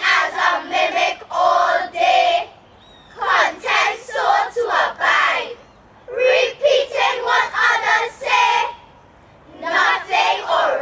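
A group of young voices speaking a poem together in unison, in phrases of two to three seconds separated by short pauses.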